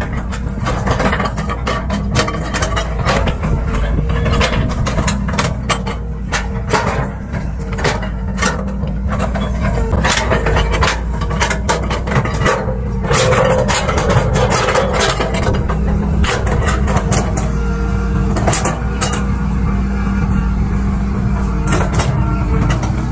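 Tracked hydraulic excavator's diesel engine running steadily under load as it digs and swings, with frequent sharp knocks and clanks throughout.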